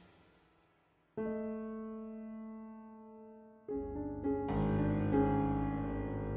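Slow piano music: after a brief hush, a held chord comes in about a second in and fades, then more notes enter near four seconds and build into a fuller chord.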